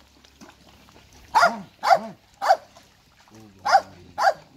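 French bulldog barking: five short barks, three in quick succession about a second in, then two more near the end.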